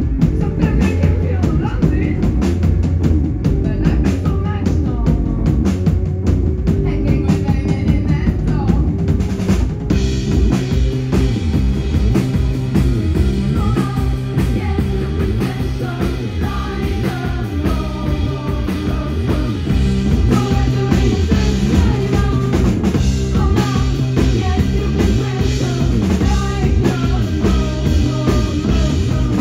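A live band playing a song: a drum kit keeping a steady beat under bass guitar, electric guitar and keyboard, with a voice singing over them. The sound changes in character about ten seconds in.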